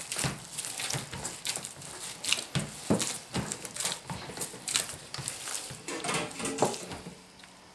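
Hands squeezing and kneading cold ground pork with spices and ice water into a sausage paste: irregular wet squelching and smacking, fading near the end.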